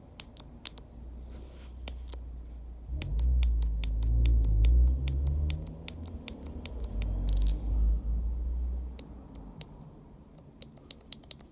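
Bosch cold start valve solenoid clicking open and shut in quick, irregular clicks as a power lead is touched to its terminal; the unclogged valve is now operating. A low rumble runs through the middle of it.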